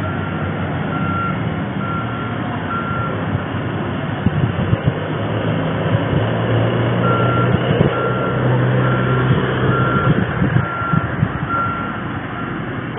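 Electronic beeping, about two short high beeps a second, over a steady low rumble. The beeping stops a few seconds in and starts again about halfway through.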